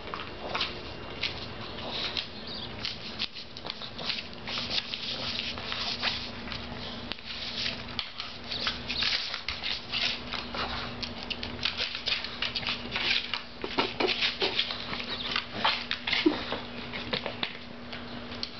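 A pug licking a paper plate clean: a fast, irregular run of wet tongue smacks and clicks, with the plate scraping as the dog noses it across a hardwood floor.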